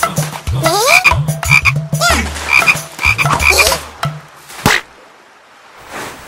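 Cartoon frog croaking over and over, a few croaks a second, stopping about four seconds in; a single sharp click follows a little later.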